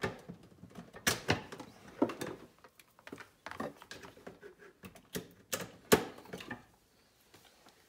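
Irregular clicks and short rustles from a plastic phone wall charger and its USB cable being handled and untangled, the sharpest click about six seconds in.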